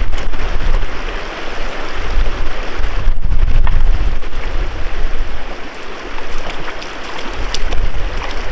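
Steady rush of a shallow river running over stones, with a gusty low rumble of wind on the microphone.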